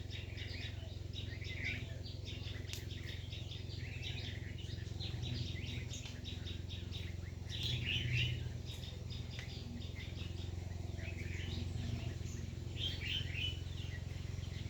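Small birds chirping and twittering in repeated short bursts, loudest about eight seconds in, over a steady low rumble.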